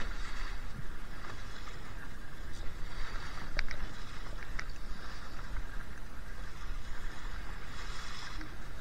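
Wind buffeting the microphone over the steady rush of water along the hull of a Laser 2 sailing dinghy under way in strong wind, with a few faint ticks.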